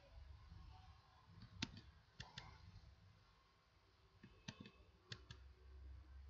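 Faint, scattered sharp clicks of a computer mouse and keyboard, a handful in all: an ImageJ selection box being dragged from band to band and the M key pressed to log each measurement.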